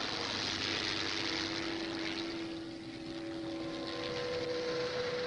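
A car approaching on a dirt road: engine running and tyres on gravel as a steady rush of noise, with a steady low hum alongside.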